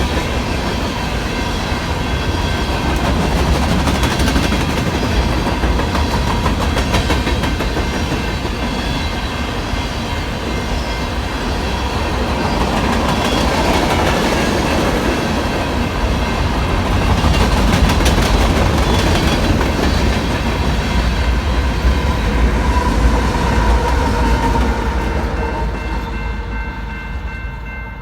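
BNSF coal train's cars rolling past at a grade crossing, a steady heavy rumble, while the crossing's electronic bell rings on as a steady ringing tone. Near the end the train noise dies down and the bell stands out.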